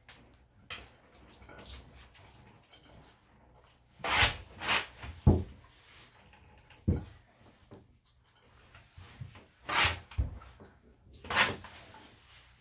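Water splashing and dripping into a bathtub in several short bursts as hands squeeze the water out of a freshly rinsed dog's wet coat.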